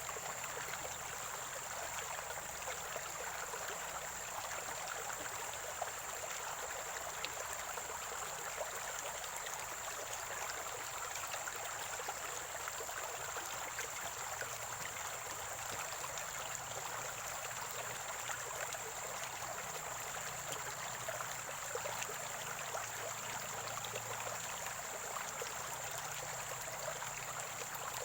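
Spring-fed stream gurgling and trickling steadily, with a thin, steady high-pitched tone above the water.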